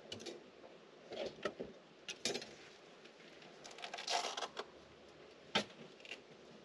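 Scattered clicks, knocks and light rattles of gear being handled at a ute's metal canopy, as items are taken from the cupboard and set down on the slide-out bench. There is a louder single knock about five and a half seconds in.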